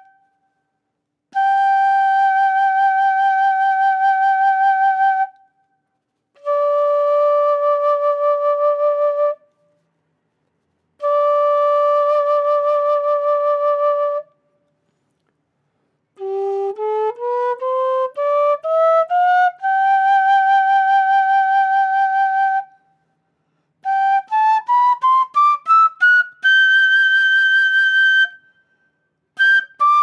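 Quena, the Andean notched end-blown cane flute, playing three long held notes with short silences between them, the second and third lower than the first. It then climbs a slow rising scale to a held note, and near the end plays quick ascending runs to a high held note and starts a fast descending run.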